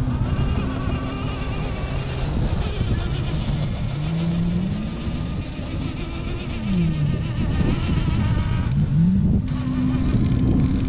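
Traxxas TRX4 RC crawler's electric drive motor and gearbox whining as it climbs a rock. The pitch rises and falls several times as the throttle is worked, over a steady low rumble.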